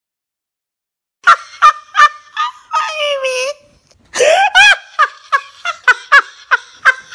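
A woman's voice making a series of short, clipped vocal yelps, like clucking or laughing, in two runs separated by a short pause. It starts about a second in, after a moment of silence, with one longer sliding note in the first run.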